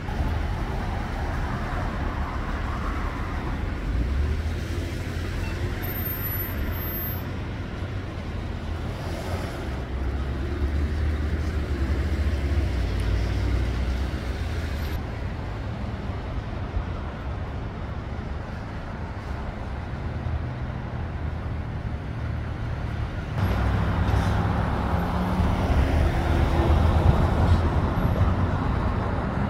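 Street traffic: motor vehicles passing with a steady low rumble, louder for the last several seconds.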